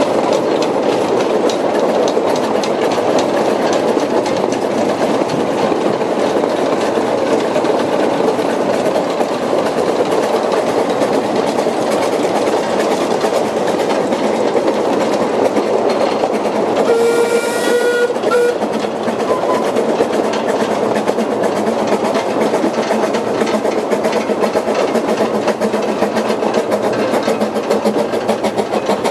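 Steady rolling rumble and rail clatter of a narrow-gauge steam train on the move, with fine rhythmic clicking that grows more distinct near the end. About 17 seconds in a steam whistle sounds once, briefly.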